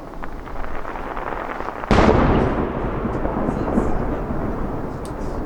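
Aerial fireworks bursting: smaller bangs, then a sudden loud boom about two seconds in that rumbles and echoes away slowly.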